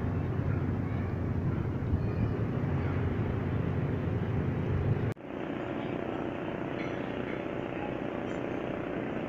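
Steady low rumble of outdoor ambience that cuts off sharply about five seconds in. A quieter steady hum follows.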